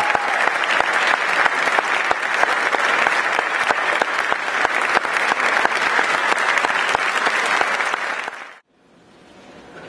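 Audience applauding, a dense steady clapping that cuts off abruptly near the end, leaving faint hall noise.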